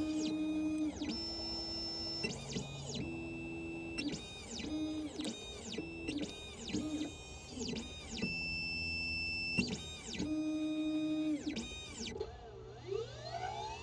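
Key-cutting machine's motors whining through a series of short moves, each tone held steady and then sliding down in pitch as the motion stops. Near the end a whine rises steadily in pitch as a motor speeds up.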